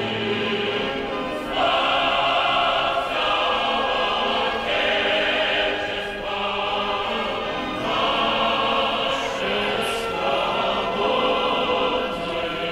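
A large choir of men's and women's voices singing a solemn song together in long held chords that change every second or so, growing louder about a second and a half in.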